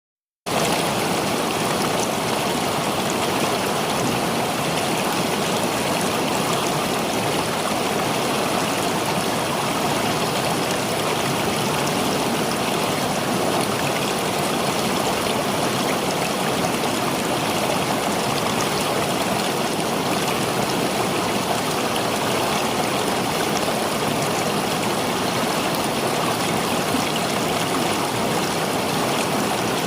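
River water flowing, a steady, unbroken rush that cuts in abruptly just after the start.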